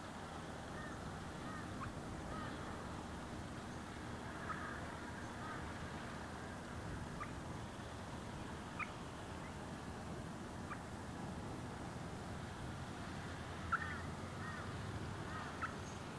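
Ospreys giving short chirping calls in scattered bursts, with single sharp notes between them; the loudest burst comes near the end, over a steady low background rumble.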